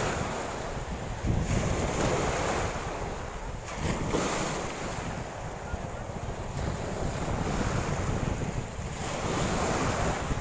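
Choppy sea with small waves washing in at the water's edge, and wind buffeting the microphone. The noise swells and eases every few seconds.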